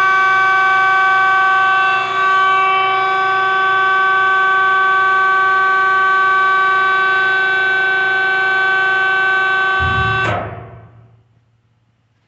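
The hydraulic power unit of a Zwack F-20 upender, an electric motor driving a hydraulic pump, running with a steady high whine. About ten seconds in there is a low clunk, the whine cuts off and the sound dies away over a second or so as the unit is switched off.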